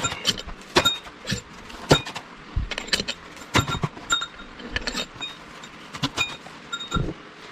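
Metal tools and engine parts clinking and knocking as they are handled, about a dozen irregular sharp clanks, several with a short metallic ring.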